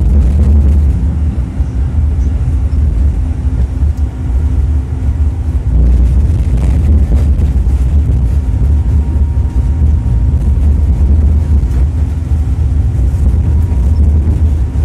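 Inside a Tatra T3SUCS tram running along the line: a loud, steady low rumble of the car rolling on its rails, with a faint steady hum over it.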